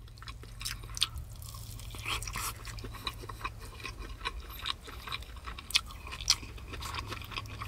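A person chewing a mouthful of beef nihari close to the microphone: a steady run of irregular short mouth clicks and chewing noises.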